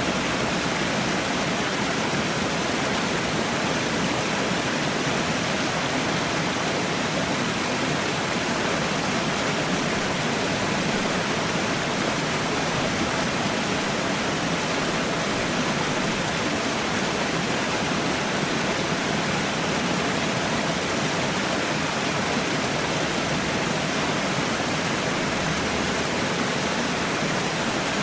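Small waterfall splashing steadily, an even rushing of falling water with no change in level.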